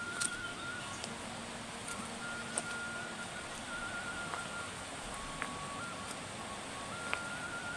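Steady rush of a rocky, shallow river, with a thin whistling tone that steps back and forth between two pitches and about five sharp clicks scattered through it.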